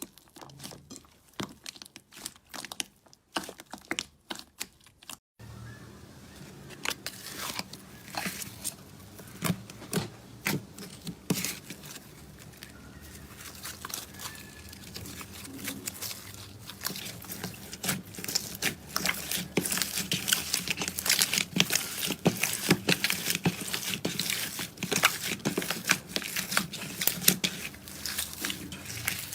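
Slime being handled, with sticky crackling and popping clicks. The clicks are sparse at first; after a cut about five seconds in, they turn dense over a low steady hum and grow busier in the second half.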